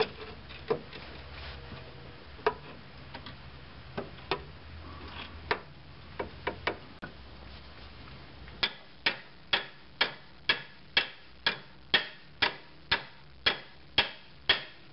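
Hammer tapping metal-on-metal against a steel lower control arm to drive its tight rubber isolator into its mount. At first there are scattered single taps. About two-thirds of the way in they settle into a steady run of sharp taps, about two a second.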